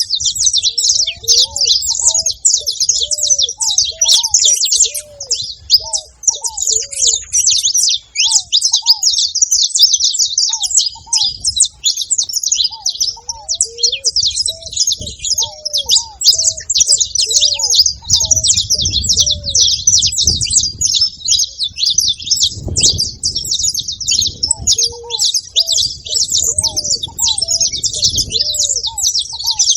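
Several saffron finches chirping and singing together in a dense, unbroken chatter of fast high notes. Underneath, a lower, short arched note repeats over and over, with some low rumbling in the second half.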